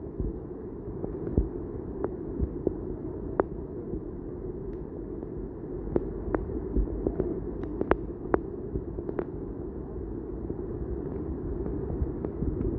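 Heavy rain and floodwater running across a street, heard as a steady low rushing noise, with scattered sharp ticks through it.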